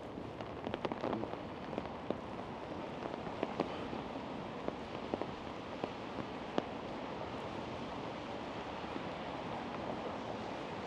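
Steady rain, with scattered sharp ticks of drops landing close by during the first several seconds.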